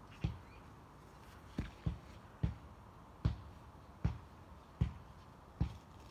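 Footsteps on grass close to the microphone: a steady walking rhythm of dull thuds, a little under a second apart.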